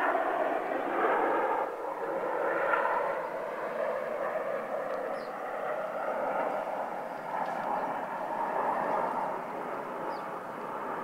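Jet engines of the Red Arrows' formation of BAE Hawk T1 trainers passing overhead at a distance: a steady rushing jet noise that swells and eases over several seconds.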